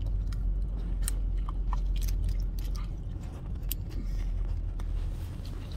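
A child chewing sour candy with his mouth closed, with a few sharp clicks, over the steady low rumble of a car's cabin.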